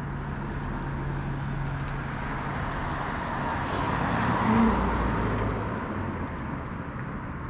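A car passing close by on the street. Its tyre and engine noise swells to a peak about four and a half seconds in and then fades, over a steady low traffic hum.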